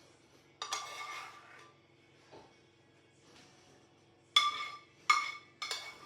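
Kitchen utensils or dishes clinking four times, once about half a second in and then three times in quick succession near the end, each strike ringing briefly, over a faint steady hum.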